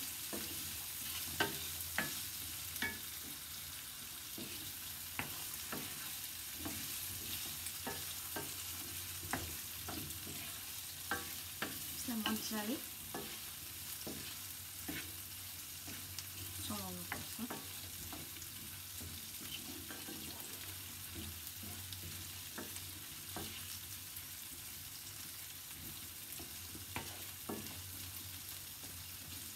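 Diced potatoes and onion frying in oil in a non-stick pan, sizzling steadily, while a wooden spatula stirs them with scattered scrapes and knocks against the pan.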